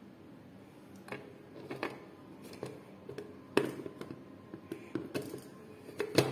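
Hard plastic clicking and knocking as a lid is fitted and twisted onto a blender jar, with the sharpest click about three and a half seconds in and another near the end.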